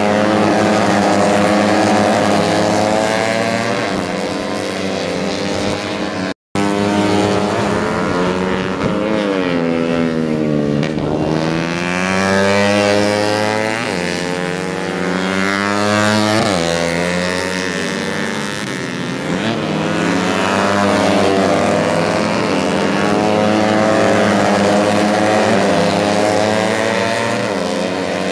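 A pack of 130cc four-stroke racing motorcycles with big-bore kits, several engines running hard at high revs. Their pitches overlap and glide up and down as the bikes pass. The sound cuts out sharply for a moment about six seconds in.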